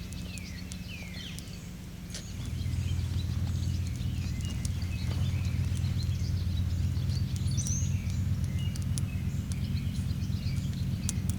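Birds chirping, with scattered faint crackles from the wood fire in the hobo stove. A louder steady low rumble starts a couple of seconds in and runs under it.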